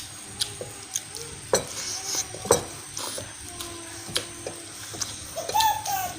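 Close-miked eating sounds: irregular wet mouth clicks and smacks of chewing soft fish and noodles. A short wavering pitched sound comes near the end.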